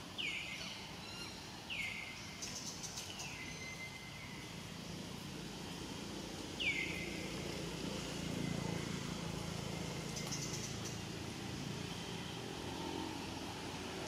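Outdoor ambience with a steady low hum and four short, high calls that fall in pitch, the loudest about six and a half seconds in.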